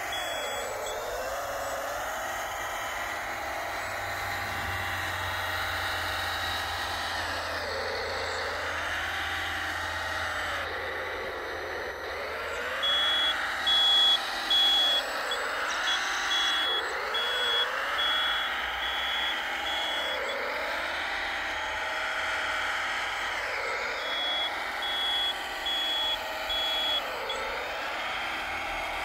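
A 1/14-scale RC hydraulic wheel loader working, its whine rising and falling in pitch every few seconds. A reversing beeper sounds in a run of short beeps about halfway through and again near the end.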